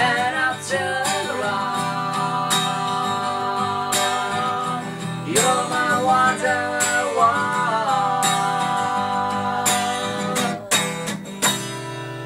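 Acoustic guitar strummed in a steady rhythm, with a man singing long held notes that bend up and down over it. Near the end the strumming thins out to a few last strokes.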